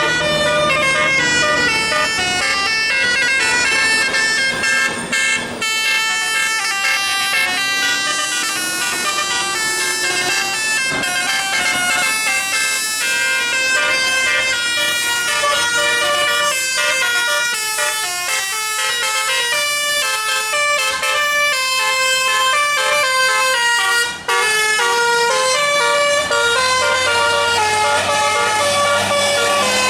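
A bus's 'telolet' musical air horn plays a fast tune of many held notes, stepping up and down in pitch. It breaks off briefly about 24 seconds in, then carries on.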